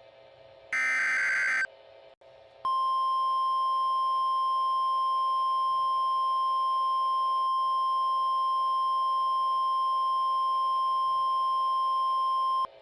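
A one-second burst of an EAS SAME header, the buzzy digital data signal of an emergency alert, about a second in. A short gap follows, then the NOAA Weather Radio warning alarm: a single steady 1050 Hz tone held for about ten seconds that cuts off sharply near the end.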